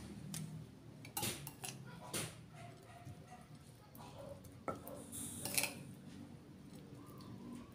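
A metal spoon clinking and scraping against ceramic dishes while scooping lumpia filling onto a wrapper: a handful of light clicks spread through, with a brief scrape a little over five seconds in.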